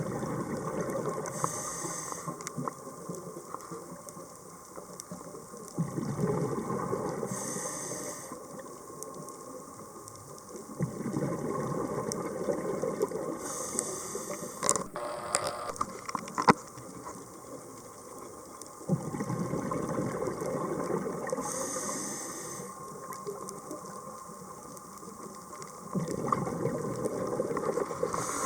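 Scuba diver's breathing heard underwater: a short hiss from the regulator on each inhale, then a few seconds of rushing exhaled bubbles, repeating about every six to seven seconds. A few sharp clicks come about halfway through.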